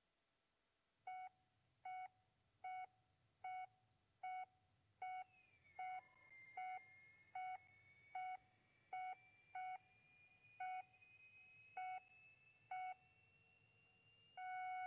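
Electronic heart-monitor beeps, one every 0.8 seconds or so, coming more unevenly toward the end. Near the end the beeping turns into a steady flatline tone.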